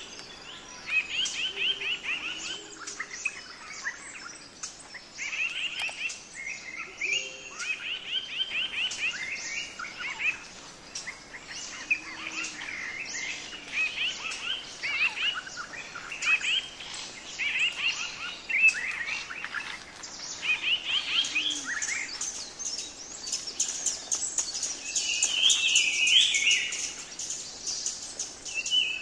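Birds singing: short chirping, trilling phrases follow one another every second or two over a faint steady high hiss.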